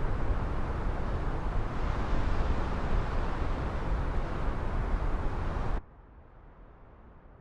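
Strong wind buffeting the microphone as a steady, gusty rumble. It cuts off abruptly about six seconds in, leaving only a faint low hiss.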